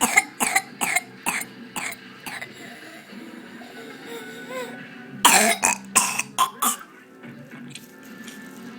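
Paroxysmal whooping cough (pertussis): a run of short, sharp coughs about two or three a second that fade out. After a pause of a few seconds, a second loud burst of coughs follows about five seconds in.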